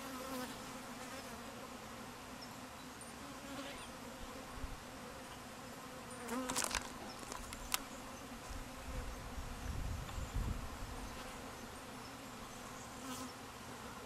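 Many honey bees buzzing in flight around an open hive, a steady hum throughout. A few sharp clicks come about halfway through, and a low rumble a little later.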